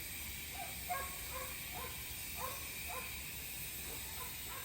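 Faint animal calls: about ten short, high-pitched calls scattered over a steady background hiss.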